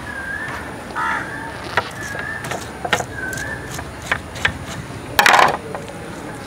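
Knife clicking and scraping against an aluminium plate as the scalded skin is peeled off a buffalo tongue, in sharp separate clicks. A bird calls a short wavy whistle about once a second through the first half, and a louder harsh burst comes about five seconds in.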